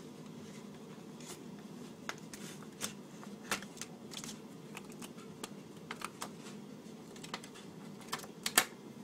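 Irregular light clicks and taps from the plastic Magic Cutter and the material it cuts being handled against a surface, with a couple of sharper knocks near the end.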